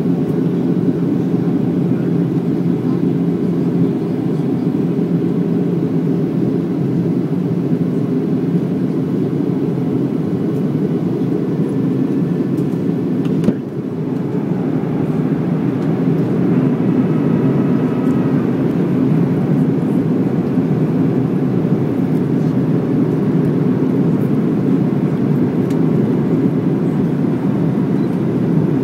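Steady low cabin roar of a Boeing 737-800 on descent, its CFM56 engines and the airflow heard from a window seat over the wing. One sharp click comes about halfway through.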